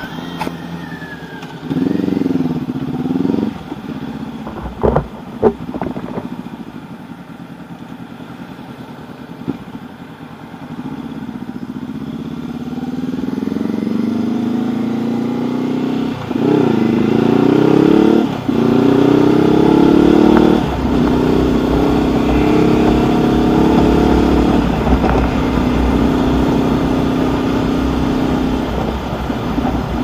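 Honda CB500X parallel-twin engine idling at a standstill and revved briefly a couple of seconds in, with a few sharp cracks about five seconds in. Then it pulls away and accelerates up through the gears: the engine note climbs and breaks at each shift, three shifts close together past the halfway point, before settling into steady cruising with a low wind rumble.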